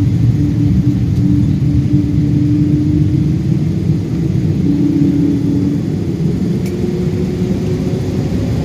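Cabin noise inside a Boeing 777-200 with its jet engines running at high power: a loud, steady rumble and roar with a steady engine drone on top, easing slightly near the end.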